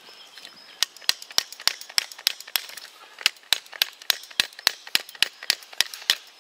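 A metal tent peg being hammered into the ground: sharp, even knocks, about three to four a second, starting about a second in.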